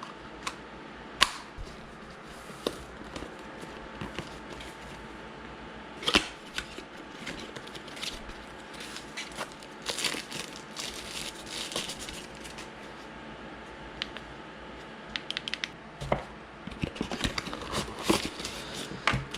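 Handling of a plastic drone and its accessories: scattered sharp clicks and knocks of hard plastic, with some rustling, coming in clusters.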